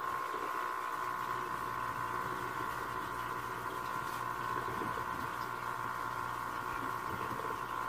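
Aquarium pump running with a steady hum, and water bubbling.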